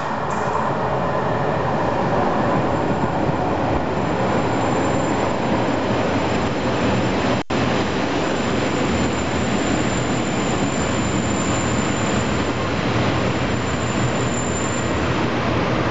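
Diesel multiple unit moving along the platform close by: a steady rumble of its engine and wheels on the rails, with a thin high squeal running over it and a momentary dropout about halfway through.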